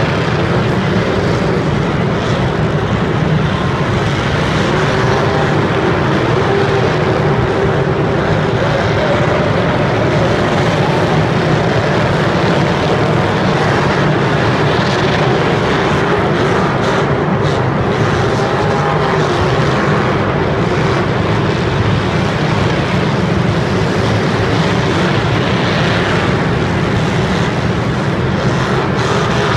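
Many demolition derby cars' engines running and revving together in a loud, continuous din, with the pitch wavering as drivers rev up to ram one another.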